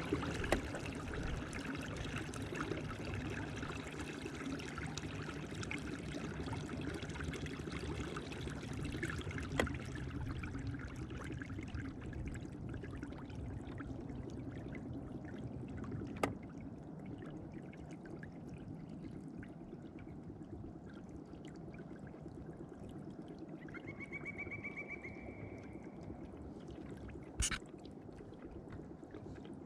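Water rushing and trickling along the hull of a kayak under way, with a low steady hum from the electric trolling motor that fades out about halfway through. A few sharp knocks stand out.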